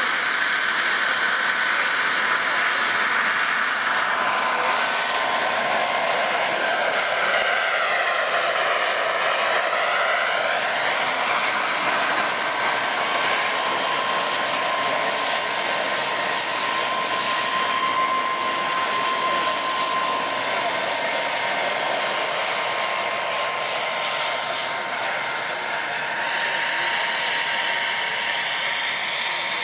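RC scale model helicopter running steadily as it lifts off and hovers low: a continuous rush of rotor-blade noise with a steady motor whine, the sound swelling and shifting as the helicopter moves in the hover.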